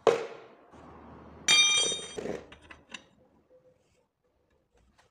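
A plastic bucket knocks down on concrete, then a metal hand tool clinks with a bright ring lasting under a second, followed by a few small clicks as the tool is handled.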